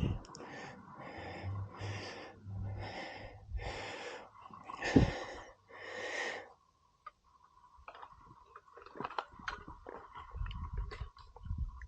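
A man breathing hard and fast with effort, about two breaths a second, while straining on a rim-straightening tool. After about six and a half seconds the breathing stops, leaving faint scattered clicks and taps and a thin steady tone.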